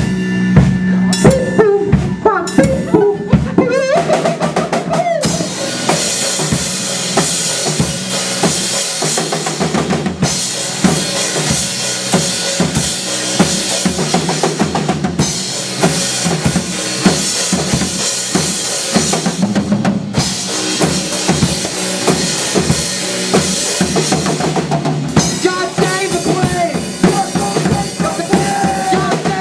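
Band playing an instrumental passage on drum kit and other instruments, with bass drum and snare hits. A sparser opening gives way about five seconds in to the full band with cymbals, broken by short breaks roughly every five seconds.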